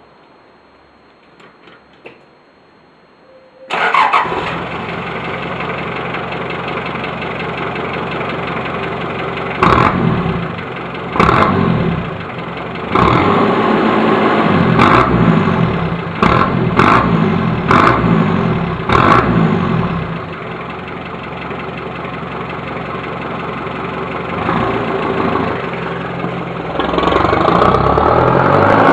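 Daihatsu Fourtrak's 2.8 turbodiesel engine starting about four seconds in and running through a homemade 2-inch straight-through exhaust with no silencer. It idles, then takes a run of sharp throttle blips, settles back to idle, and near the end pulls away with the engine note rising.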